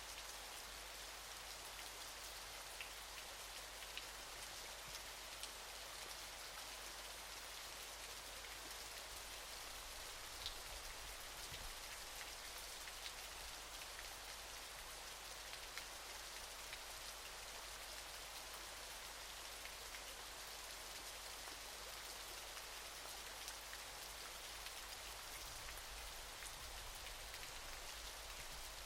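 Waterfall: falling water giving a steady, even hiss, with a few scattered sharp drip-like ticks, the clearest about ten seconds in.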